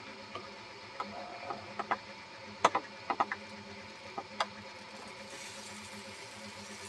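HO-scale model rotary coal dumper, driven by a model locomotive mechanism, starting to turn a hopper car over: a quiet mechanical running sound with scattered clicks and ticks. A faint higher whir comes in about five seconds in.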